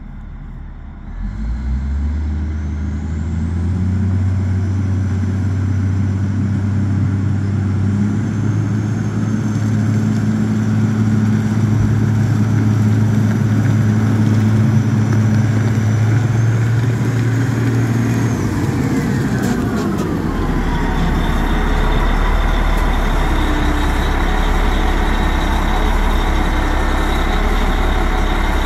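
Caterpillar 980G wheel loader's diesel engine picking up about a second in and running steadily under way, then dropping in pitch about two-thirds through as the machine slows and stops. It settles to a steady low idle, with a thin high whine over it.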